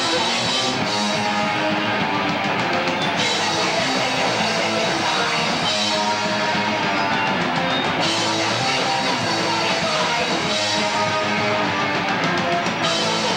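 Loud live rock band playing: electric guitar and drum kit, with cymbals crashing in stretches of a few seconds.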